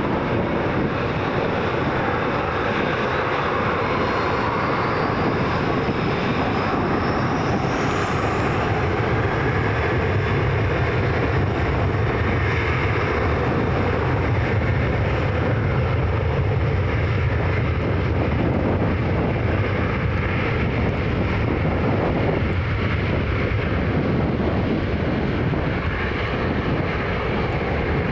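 Boeing 737-800's twin CFM56 jet engines at take-off thrust during the take-off roll: a loud, steady roar. A high whine rises in pitch over the first several seconds, and a deep rumble grows stronger partway through.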